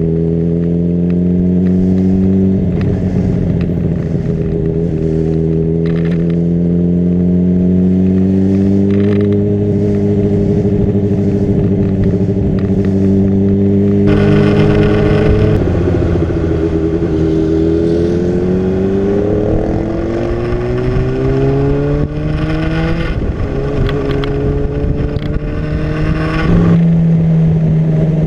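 Honda CBR600RR's inline-four engine running while riding, at a steady cruise at first. About halfway through the throttle opens and the pitch rises twice under acceleration. Near the end it drops abruptly to a lower, steady note.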